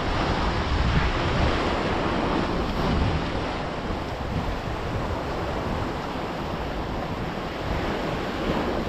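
Sea surf washing steadily against the rocks, with wind buffeting the microphone in low rumbling gusts.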